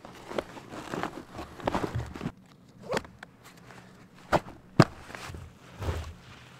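A canvas backpack being handled: fabric rustling and webbing straps scraping in short bursts, with two sharp clicks near the end.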